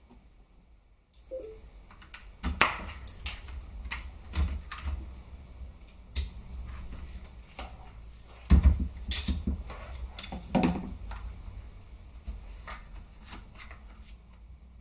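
Clicks, knocks and handling clatter of an SRC G36 airsoft rifle's plastic and metal parts being fitted back together, likely the stock going back on. A louder knock comes about eight and a half seconds in.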